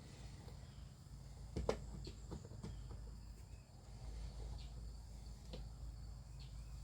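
Faint scattered clicks and light knocks, the sharpest about a second and a half in, over a low steady hum.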